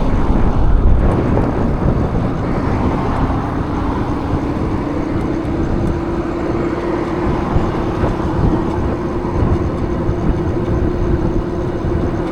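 An e-bike being ridden: wind and tyre rumble, with a steady whine that comes in about two seconds in, rises slightly in pitch and then holds.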